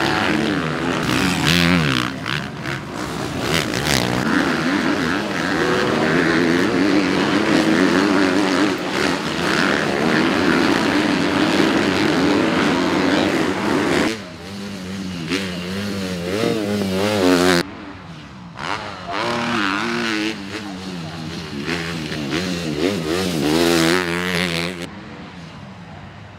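Motocross bike engine revving hard and easing off again and again, its pitch rising and falling as the throttle is worked, with a couple of abrupt drops in level.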